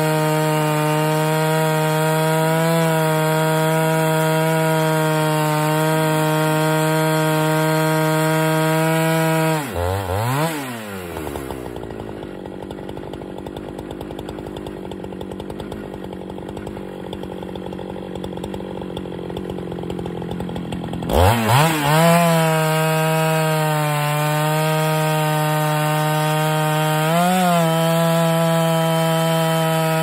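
Husqvarna 395XP two-stroke chainsaw running at full throttle as it rips through a log in an Alaskan chainsaw mill. About ten seconds in it drops to idle for around ten seconds, then revs back up and cuts on. The cut is slow, which the owner puts down to a chain that needed filing or changing.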